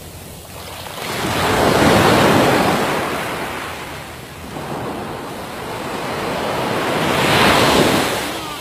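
Small waves breaking and washing up a sandy beach, the surf swelling twice, about two seconds in and again near the end.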